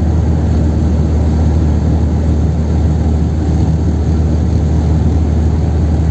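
Chevrolet Kadett 1.8 naturally aspirated car driving at a steady speed on the highway: a steady, loud low drone of engine and road noise that neither rises nor falls.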